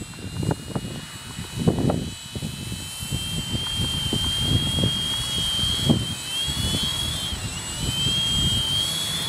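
3DR ArduCopter's brushless motors (880 kV, 10x4.5 propellers) whining as they spin up with the copter on the ground, the pitch climbing, wavering and dipping briefly about seven and a half seconds in. Wind gusts rumble on the microphone.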